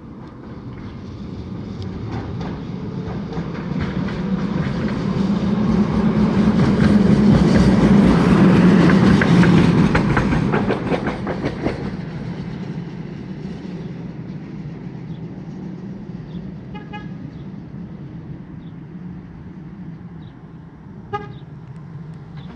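Tatra T3 tram passing on street track: its motor hum and wheel noise grow louder, peak with a rapid clatter of wheels over the rails about eight to eleven seconds in, then fade as it draws away. Two short toots sound in the later part.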